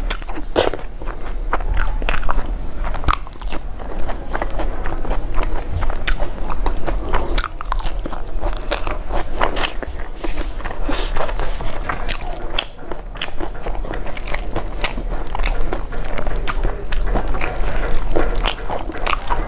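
A person chewing and crunching mouthfuls of rice and fried food eaten by hand, with a dense run of crisp clicks and crackles throughout.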